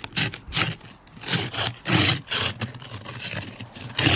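Ice being scraped off a car's rear window: a series of quick, rough scraping strokes on frozen-over glass. The ice is frozen hard, so it comes off with effort.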